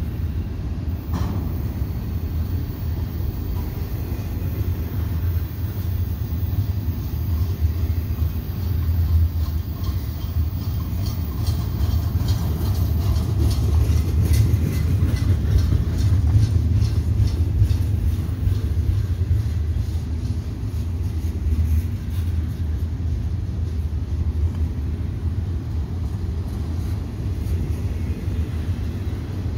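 Double-stack intermodal freight cars rolling past: a steady low rumble of steel wheels on the rails, a little louder in the middle, with a run of light regular clicks partway through.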